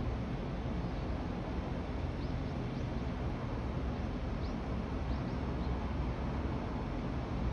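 Outdoor city ambience: a steady low rumble, with a few faint, short, high chirps from small birds scattered through the middle.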